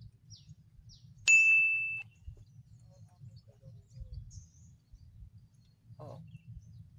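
A single loud, high-pitched ding about a second in, held for under a second and then cut off.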